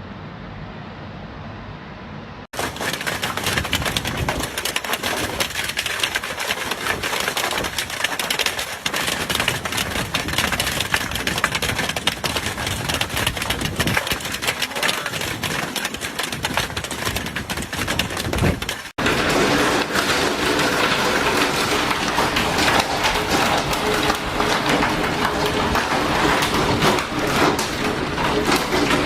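Hailstones pelting hard surfaces: a loud, dense, continuous clatter of rapid impacts. A softer hiss comes first for a couple of seconds.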